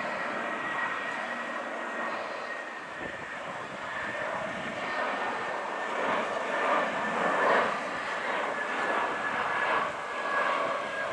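Airbus A320 jet engines on final approach with the landing gear down: a steady rushing noise with a thin high whine that sinks slightly in pitch, growing louder past the middle as the plane passes close.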